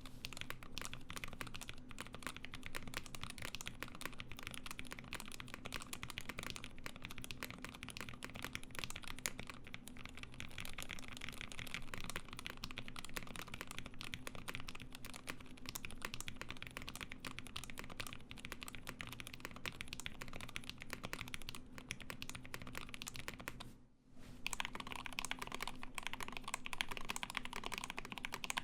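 Rapid, continuous typing on an Ikki68 Aurora mechanical keyboard with greased Gateron Black Ink linear switches and PBT keycaps, a dense run of keystroke clacks. Typing stops briefly about four seconds before the end, then starts again.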